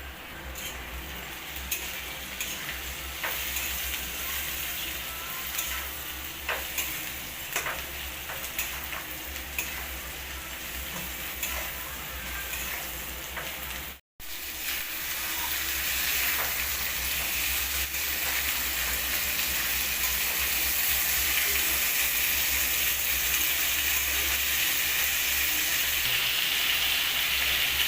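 Food sizzling and frying in hot oil in a pan, with scattered clicks of stirring in the first half. After a brief break about halfway through, the sizzle is louder and steadier.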